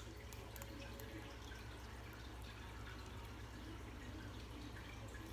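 Quiet room tone with a steady low hum and a few faint soft clicks in the first second.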